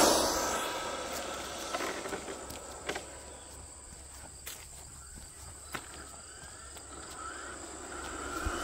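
Brushless electric motors and tyres of Losi 22S '68 Ford no-prep RC drag trucks on asphalt. One truck passes close and fades as it runs away, and the trucks grow louder again near the end as they come back. Insects buzz steadily under it.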